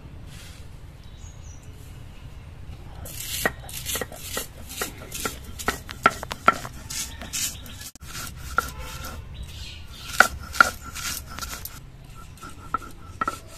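Stone roller of a shil-nora being worked over the flat grinding stone, crushing dry puffed rice into powder. It makes a run of sharp clicks, crunches and stone-on-stone knocks, about two to three a second, starting about three seconds in and easing off near the end.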